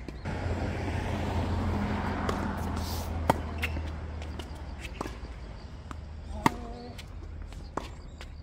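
Tennis ball impacts on the courts: a few sharp pops, spaced a second or more apart, the loudest about two-thirds of the way through. Over the first half runs a rushing noise, and a short voice call comes near the loudest pop.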